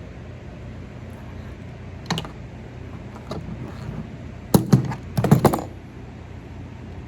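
Sharp clicks and knocks of hand tools against the metal terminal hardware of a horn tweeter as it is handled and worked: one click about two seconds in, then a quick run of several over about a second past the middle.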